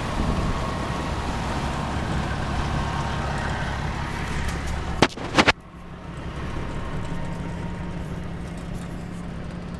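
Rushing wind and water noise with a low rumble, broken about five seconds in by two sharp knocks, after which it drops to a quieter steady low hum.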